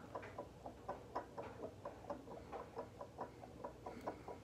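Small plastic balance toy rocking on a hard countertop, making faint, quick, even clicks, about five a second.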